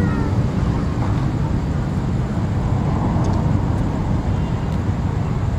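Steady low rumble of a diesel locomotive engine running.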